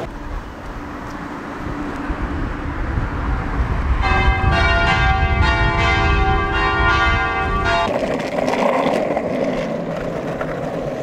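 Church bells ringing for about four seconds over a low steady rumble, cutting off abruptly near two-thirds of the way in; then a rough rolling noise of skateboard wheels on pavement.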